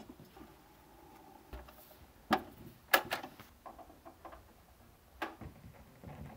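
Sharp clicks and knocks of a music player's controls and parts being handled, as it is switched over to find something to play: two loud clicks a little after two and near three seconds in, another past five seconds, with lighter handling noises between.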